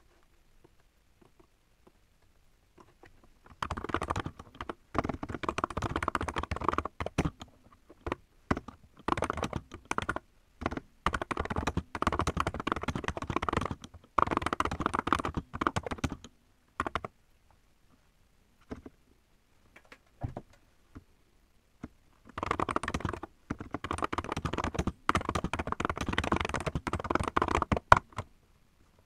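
Fast typing on a mechanical computer keyboard: dense runs of key clicks begin a few seconds in. They break off midway for about five seconds, leaving a few stray keystrokes, then resume and run on.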